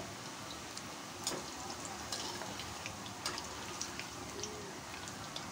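Potato and cheese cutlets deep-frying in hot oil in a kadhai: a steady sizzle with scattered sharp crackles and pops, while a slotted metal spoon turns them in the oil.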